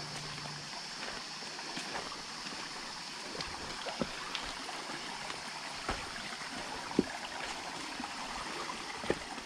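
Shallow jungle stream trickling over rocks, under a steady high-pitched insect drone, with a few sharp footfalls on stones, the loudest about seven seconds in.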